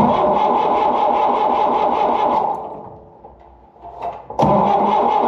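Starter cranking the carbureted engine of a 1972 Allis-Chalmers M65 road grader, a rhythmic chugging, in two bursts. The first stops after about two and a half seconds and the engine winds down without firing; the second starts about four and a half seconds in. The engine is hard-starting, cranked here with its ignition coil fed straight from an external 12-volt battery to test whether low cranking voltage is to blame.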